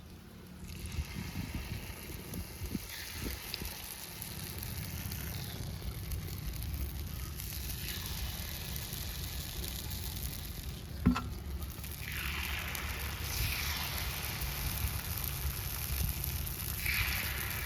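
Paniyaram batter frying in oil, with sizzling that swells and fades several times over a steady low rumble. There is one sharp knock about 11 seconds in.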